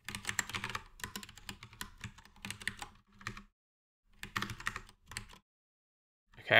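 Typing on a computer keyboard: quick runs of key clicks broken by short pauses, with a brief flurry near the end.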